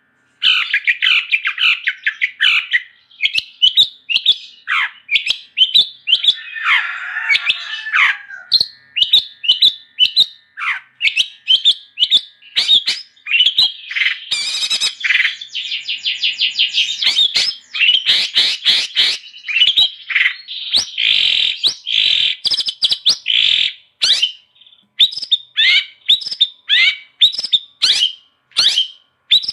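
Long-tailed shrike singing a rapid, unbroken stream of short, sharp chirps and varied phrases, broken twice by harsher, scratchy stretches.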